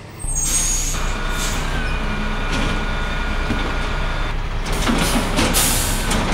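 A large truck engine sound effect running steadily, with a thin whine in the middle and bursts of hiss about five seconds in.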